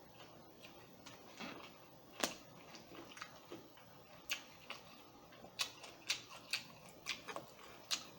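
Quiet eating sounds: irregular sharp clicks and smacks of chewing, about eight in all, the loudest about two seconds in.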